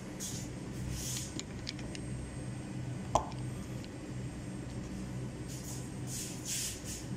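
Steady hum of a room air conditioner, with several brief rustles and one short sharp click about three seconds in.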